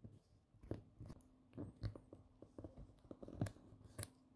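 Faint, irregular crunches and snaps as 3D-printed PLA support material is broken off a print with pliers.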